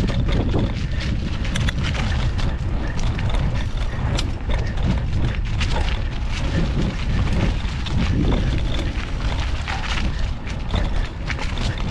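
Mountain bike being ridden over rough ground, heard from a handlebar-mounted action camera: wind buffeting the microphone with a constant low rumble, broken by frequent sharp rattles and knocks from the bike.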